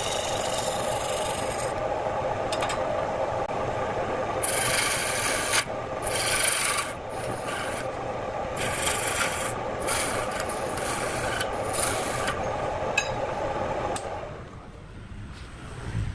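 Wood lathe running with a redwood blank spinning while a hand-held pad is pressed against it, giving repeated hissing, rubbing strokes. The lathe's steady running sound falls away near the end.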